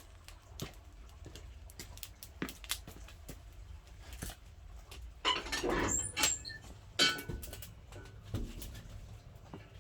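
Firewood crackling and popping in a wood-burning stove, irregular sharp pops, with a longer clatter about five seconds in.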